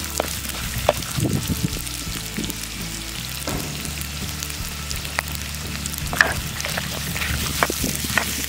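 Chopped vegetables, dried red chillies and curry leaves sizzling in hot oil in a clay pot as a tempering is fried, stirred with a wooden spatula that clicks against the pot now and then.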